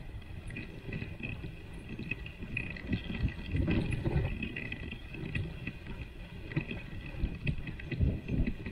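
Dog sled moving over snow: a steady scraping hiss from the runners, with wind rumbling on the microphone in uneven gusts.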